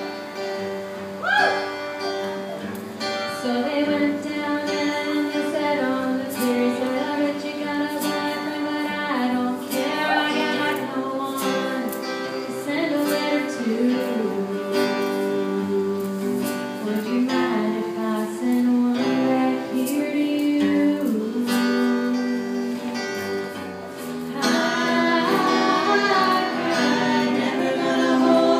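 Live acoustic guitar strumming under a woman singing a slow, sad country ballad. The music gets louder and fuller about four seconds before the end.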